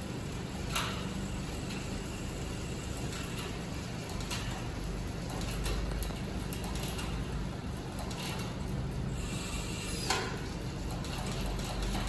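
Hands-on work on a road bike's drivetrain in a repair stand: a few scattered sharp clicks and light metallic knocks over a steady low hum.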